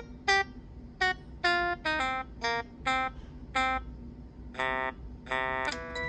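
Samsung SPH-A620 cell phone playing a preloaded polyphonic ringtone: a tune of short, plucked, guitar-like synthesized notes, about two a second, then two longer, brighter notes near the end.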